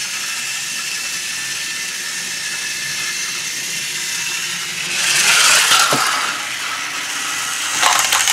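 Battery-powered TrackMaster toy train motors whirring steadily as the engines run on plastic track. About five seconds in, a louder swell of noise rises and dies away.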